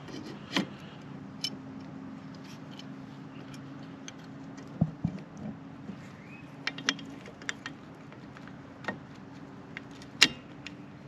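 Small metal clicks and clinks of a motorcycle floorboard, its return spring and mounting parts being handled and pushed into place, with a dull knock about halfway through and a sharper click near the end.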